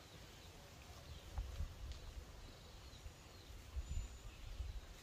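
Quiet outdoor background with a few faint, short bird chirps. Low rumbles on the microphone swell twice, about a second and a half in and again near four seconds.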